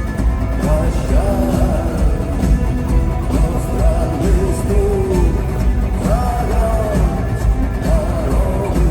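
Rock band playing live in an arena, heard through a phone's microphone, with heavy bass and drums and a sung vocal line above them.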